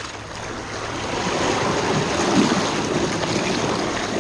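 Seawater surging and churning between granite jetty boulders as a wave washes in, building up about a second in and staying loud.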